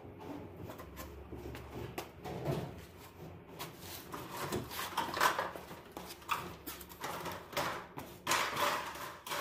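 Tools and gear being handled and gathered up in a small bathroom: irregular clatters, knocks and rustling.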